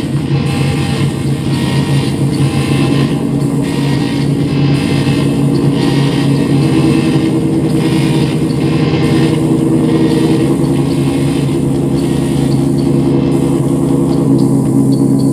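Live electronic drone music played on a synthesizer and electronics: dense, loud, held low tones, with a hazy upper layer pulsing about every two-thirds of a second. A higher held tone joins about halfway through, and the pulsing fades near the end.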